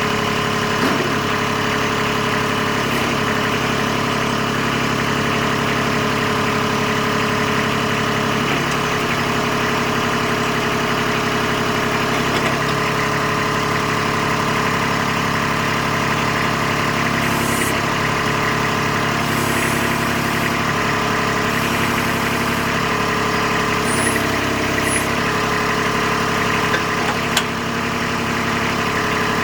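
Kubota B26 tractor's three-cylinder diesel engine idling steadily, with a few slight changes in its note.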